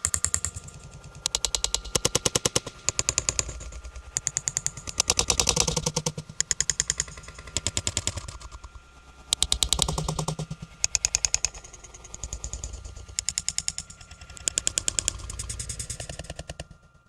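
Eerie clattering sound effect: rapid rattling knocks, about ten a second, coming in repeated bursts of a second or so that swell and fade. A thin steady high tone runs underneath.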